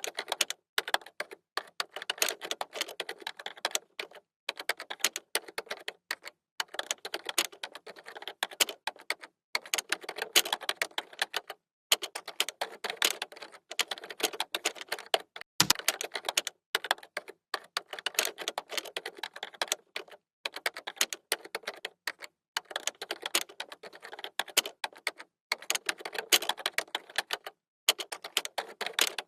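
Typing on a computer keyboard: quick runs of key clicks broken by short pauses every second or two.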